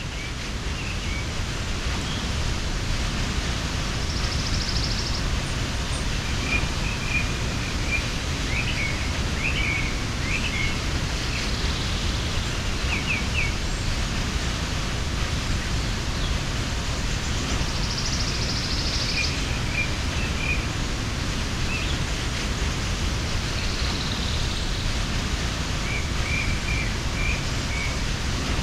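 Waterfall rushing steadily, with small birds chirping briefly over it several times.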